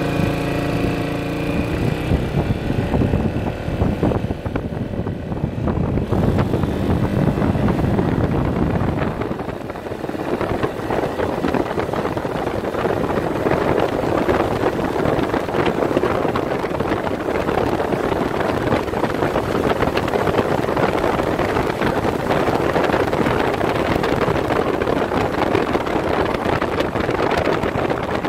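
Yamaha XMAX 300 scooter's single-cylinder engine under full throttle, held at high revs by its CVT as the scooter accelerates from about 50 to 130 km/h. Wind rushing over the microphone grows with the speed and takes over about a third of the way in.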